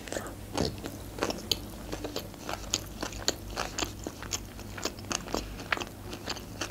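Close-miked chewing of a mouthful of sushi roll: a run of short, irregular mouth clicks and soft crunches.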